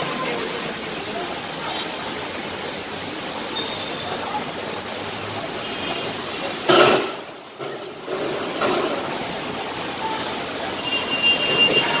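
Steady rushing noise of heavy monsoon rain and strong wind. About seven seconds in there is a short loud burst, followed by a brief lull.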